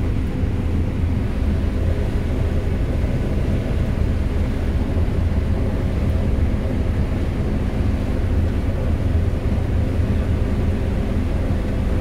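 John Deere 9560 STS combine harvesting corn, heard from inside the cab: a steady low drone of the engine and machinery under load.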